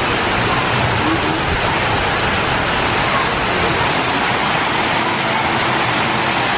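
Steady rushing and splashing of water pouring down a tall ribbed fountain wall and crashing into the pool at its base.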